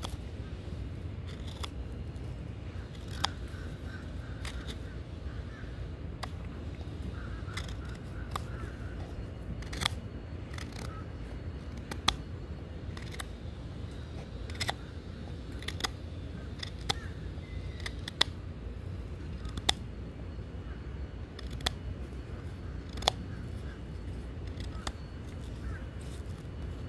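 A pocket knife whittling a hard oak stick: sharp, irregular clicks and snaps as the blade bites and chips the wood, every second or two. A steady low rumble of street traffic runs underneath.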